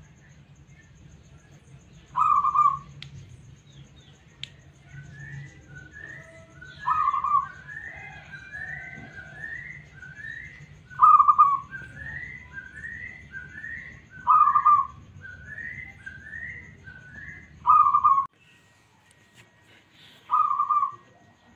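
Zebra dove (perkutut) cooing: six loud call notes a few seconds apart, with a fainter run of higher, rising notes about two a second between them. A low background hum stops near the end.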